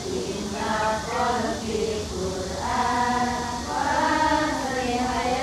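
A group of women and girls singing an Islamic salawat together in unison, in held phrases with short breaks between them.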